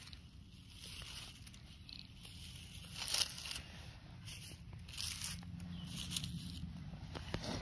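Dry grass and dead leaves rustling and crackling in several short bursts as a hand pushes them aside.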